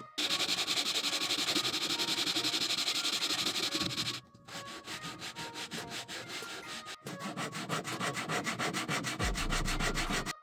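Hand sanding wood with a sandpaper-wrapped sanding block: rapid back-and-forth rasping strokes, several a second. They stop briefly about four seconds in and again about seven seconds in, then carry on.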